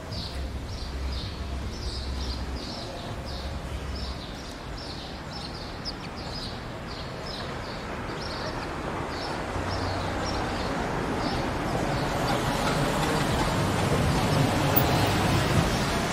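A bird chirping repeatedly, about two or three short high chirps a second. Under it is a broad rushing noise that builds over the second half and peaks near the end, like a vehicle passing.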